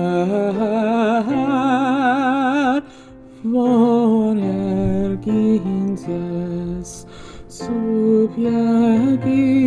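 A solo voice singing a slow Armenian hymn, holding long notes with wide vibrato over sustained instrumental accompaniment; the singing breaks off briefly about three seconds in.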